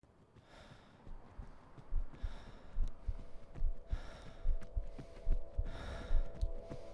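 A running man's heavy breathing, a long rush of breath every second or two, over low thumps about twice a second. Steady musical tones come in about halfway.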